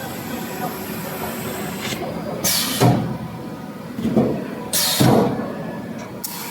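Sink-factory machinery running steadily, with two short, loud hissing bursts about two and a half and five seconds in; the first ends in a sharp knock.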